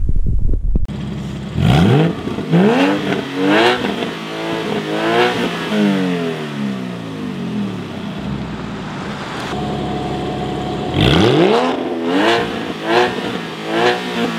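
Porsche 987.2 Boxster Spyder's flat-six revved hard in a series of quick blips, each rising and falling in pitch, through a SOUL Performance exhaust with turndown tips pointed at the microphone and the exhaust valves closed. After a few seconds settled back at idle, it is revved again in another series of sharp blips with the valves open.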